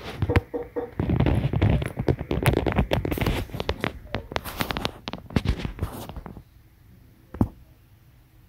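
Close, loud rubbing and crackling handling noise on the recording phone's microphone for about six seconds, full of small clicks. It stops suddenly, leaving a faint hum and a single click.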